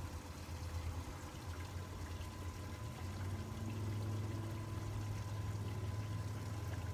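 Bow-mounted electric trolling motor humming steadily, louder from about halfway through.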